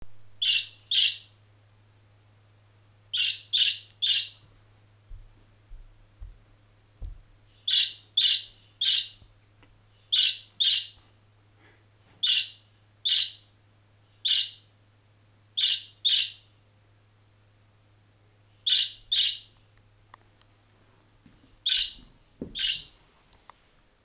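Budgerigar giving short, sharp chirps, mostly in quick pairs or threes, repeated every second or two, over a faint steady low hum.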